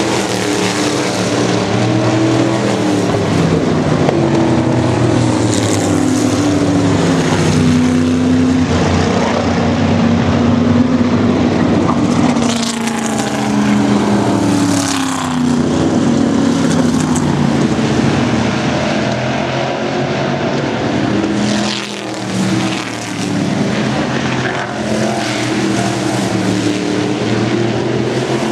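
Several oval-track race cars running at speed, their engines rising and falling in pitch as cars pass one after another.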